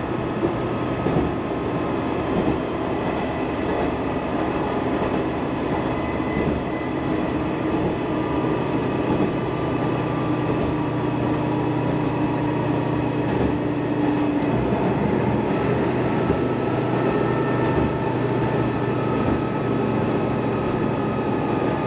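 Sanriku Railway diesel railcar running on the line, heard inside the passenger cabin: a steady rumble of engine and wheels on rail with a constant hum. One mid-pitched tone in the hum drops out about two-thirds of the way through.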